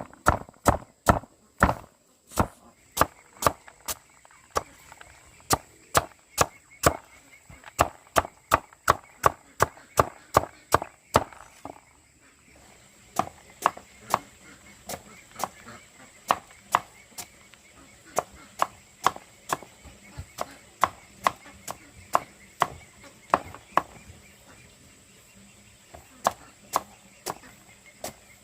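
A knife chopping food on a wooden board in a steady rhythm of about two to three strokes a second, pausing briefly about halfway through.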